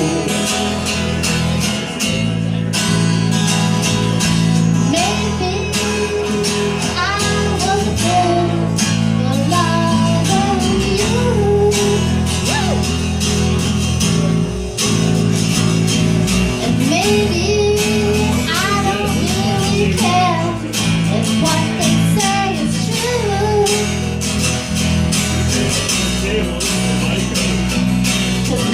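Song playing: strummed acoustic guitar over a steady bass line, with a melody line that slides between notes.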